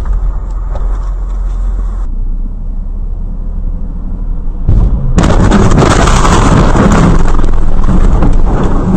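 Dashcam recording of a car collision: steady road rumble, then a sudden bang about five seconds in, followed by loud, continuous crash noise for the rest.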